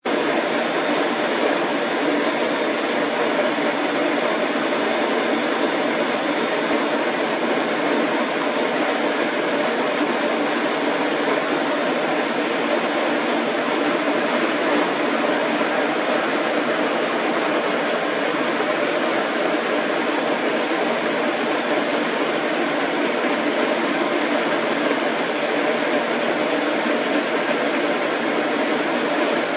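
Steady, even hiss of noise that holds at one level with no changes.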